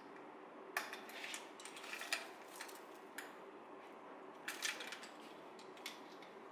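Faint, irregular light clicks and clinks of small hard objects being handled, about ten over several seconds, with a cluster near the middle.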